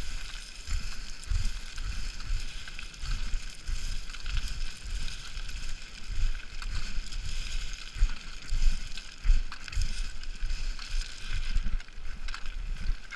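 Boots plunging down a slope of loose scree, the stones crunching and sliding underfoot in a continuous rattle, with irregular heavy footfalls.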